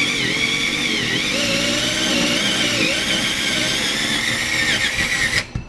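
Power drill driving a 1-inch hole saw through a thick desktop, the motor whine wavering in pitch as the cut loads it. It stops suddenly near the end.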